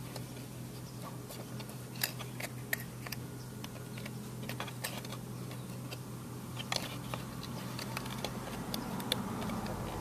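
Scattered light clicks and taps of fingers pressing a cut piece of screen mesh against the back of a molded plastic kayak hatch lid, over a steady low hum.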